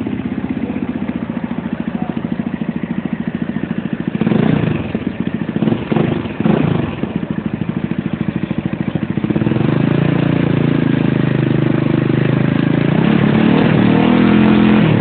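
Yamaha YS Fazer 250's single-cylinder engine running through a Coyote RS5 aftermarket exhaust, heard through a phone's microphone. It idles with quick throttle blips about four and six seconds in, then is held at higher revs from about nine and a half seconds until it drops back near the end.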